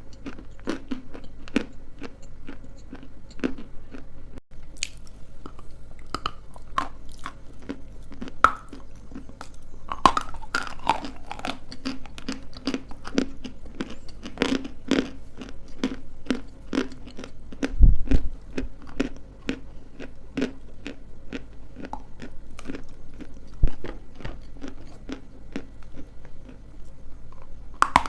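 Close-miked biting and chewing of dry edible clay pieces: dense sharp crunches and crackles one after another. A heavier low thump comes about two-thirds of the way in.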